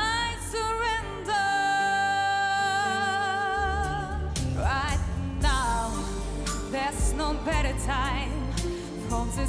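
A powerful singing voice over band accompaniment, holding one long high note, then singing wavering runs of notes as the bass comes in more heavily.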